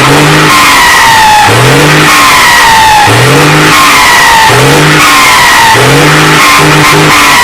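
Ford truck's turbocharged engine revved again and again, about once every second and a half. Each blip is followed by a falling whistle from a comb fitted in the turbo intake.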